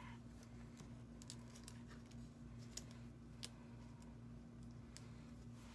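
Near silence: a steady low hum with a few faint clicks and rustles of paper being handled and pressed down onto a scrapbook page.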